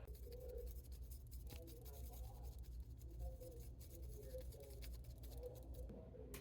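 Faint light scratching and small ticks of tweezers and a plastic tool dabbing solder mask onto a circuit board, over a low steady hum.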